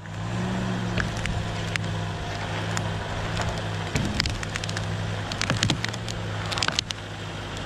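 An engine running steadily at a low, even pitch, with many sharp cracks and snaps of wood splintering over it.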